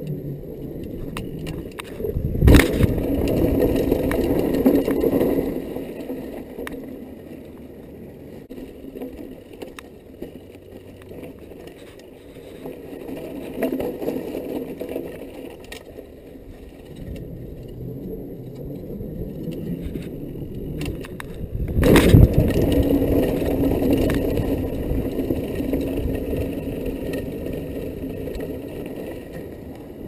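Mountain bike running downhill: tyres rumbling and the bike rattling, with two hard thumps, about two seconds in and again near twenty-two seconds, each followed by a few seconds of louder rumbling.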